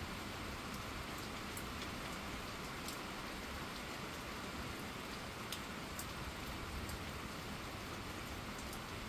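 Steady rain falling on wet asphalt pavement and grass: an even hiss of rain with a few sharp drop ticks scattered through it.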